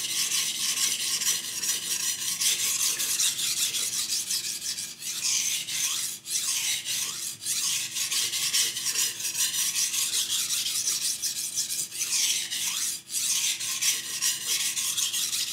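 Steel knife edge stroked repeatedly across a soaked 700-grit whetstone: a continuous gritty scraping that swells and fades with each stroke, with brief breaks a couple of times. This is the burr-forming stage of sharpening on the medium-grit stone.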